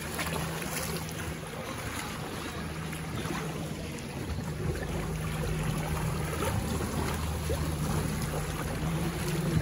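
Paddles splashing and water rushing as racing canoes and kayaks are paddled past at close range, with wind buffeting the microphone and a low steady drone underneath.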